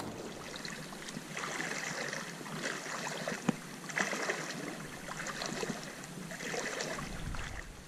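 Footsteps wading in shallow river water, irregular swishes and splashes about once a second, with a couple of sharp clicks near the middle.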